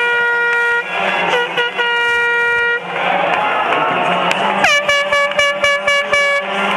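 Air horns blasting over a cheering arena crowd. There is a long blast at the start, a few short toots and a second long blast, then a couple of seconds of crowd alone, then a rapid string of short blasts. Each blast dips sharply in pitch as it starts, then holds steady.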